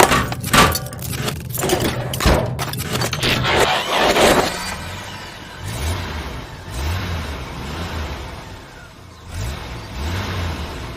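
Designed robot-transformation sound effect. A dense run of metallic clanks, clicks and scrapes fills the first four seconds or so. It gives way to quieter mechanical whirring with repeated low hums that rise and fall in pitch, like servos moving.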